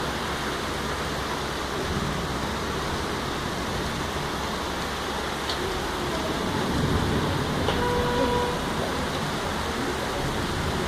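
Heavy rain falling in a steady, even hiss that swells a little past the middle. A short steady tone sounds briefly about eight seconds in.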